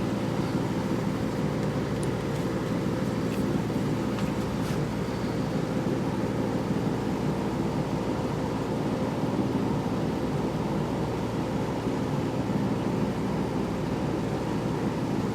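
1960s Westinghouse 10,300 BTU window air conditioner running with its compressor on: a steady blower-fan rush over an even hum.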